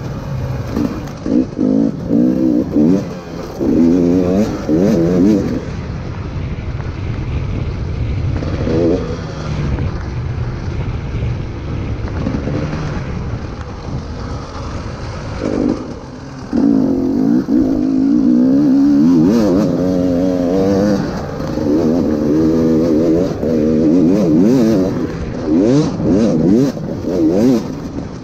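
KTM 300 EXC TPI two-stroke single-cylinder enduro engine revving up and down over and over with quick throttle changes. It runs lower and steadier through the middle stretch, then revs hard again for the second half.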